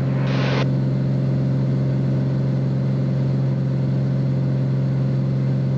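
Beechcraft Bonanza's piston engine and propeller droning steadily inside the cabin during a climb, a strong low hum. There is a brief hiss about half a second in.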